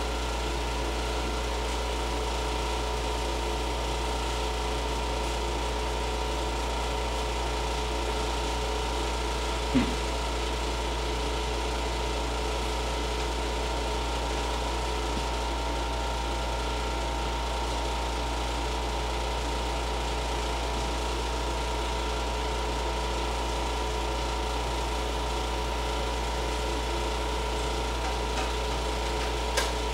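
Window air conditioner running: a steady low hum with a faint whine over it. A single brief tap sounds about ten seconds in.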